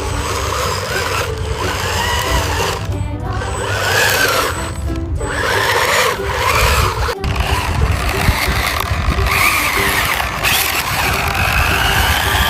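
Background music with a steady low beat and a stepping melody.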